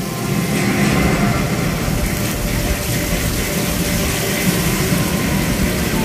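Steady rushing and hissing of a musical fountain's water jets and spray, with a low rumble underneath and a murmur of crowd voices.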